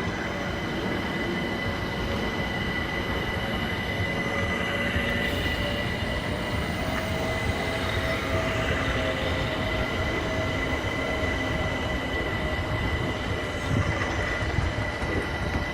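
Two electric multiple-unit trains, a Class 378 and a Class 450, pulling out side by side: a steady rumble of wheels on rail with a high steady tone over it.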